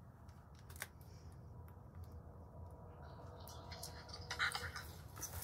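Quiet room tone with a few faint clicks, then a short spell of handling and rustling about four seconds in, as a small handheld device is fiddled with.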